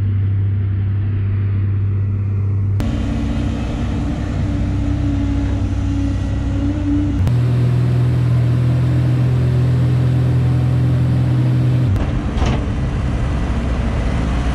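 Heavy diesel engines of a dump truck and a Volvo crawler excavator running steadily, each with its own low hum. The engine note changes abruptly three times as one machine's sound gives way to another's.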